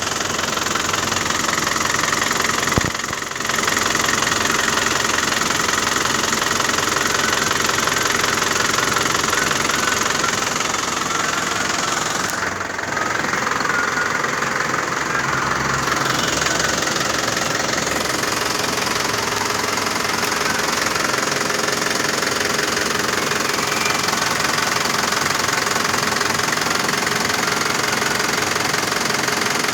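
An engine running steadily, with two brief drops in level, about three seconds in and again near twelve seconds.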